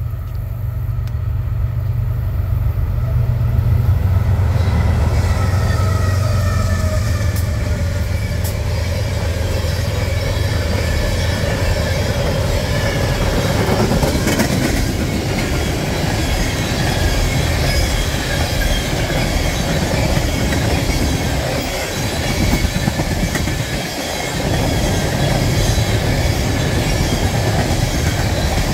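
BNSF freight train passing close by. The lead diesel locomotives' low engine rumble dominates the first several seconds, then a long string of oil tank cars rolls steadily past with continuous wheel-on-rail noise, some clacking and faint wheel squeal.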